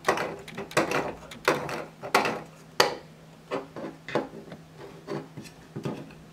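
3D-printed PLA plastic gear-mechanism parts being handled and pulled apart by hand: an irregular string of plastic-on-plastic clicks, knocks and scrapes.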